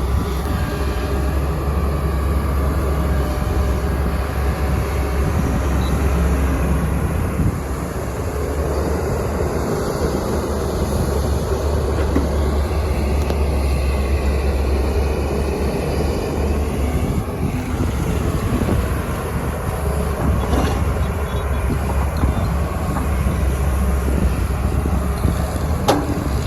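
JCB backhoe loader's diesel engine running steadily as it digs and loads earth into a lorry.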